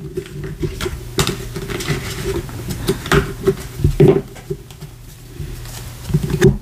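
Tarot cards being gathered up off a table and handled into a deck: irregular slides, taps and clicks of card stock, over a low steady hum.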